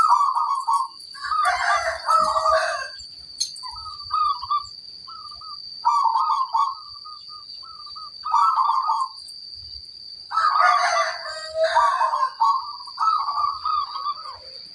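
Zebra doves (perkutut) cooing in repeated short phrases of staccato notes. Two longer, louder calls come about a second and a half in and again about ten seconds in. A steady high-pitched whine runs underneath.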